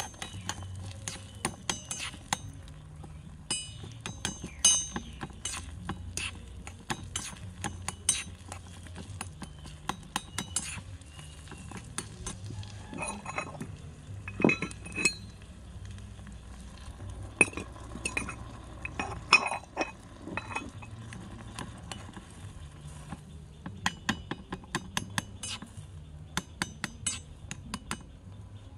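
Small metal spoon clinking and scraping against a miniature metal wok in many irregular taps while stirring and breaking up frying eggs.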